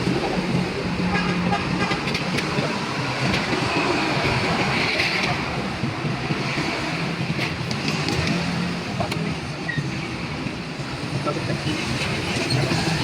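Steady road traffic noise from passing vehicles, with indistinct voices in the background.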